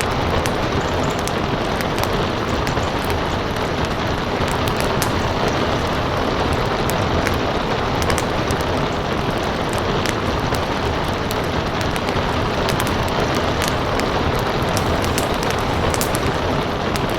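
Steady rain with the crackle of a wood fire: a constant wash of rainfall with many small, sharp pops scattered through it.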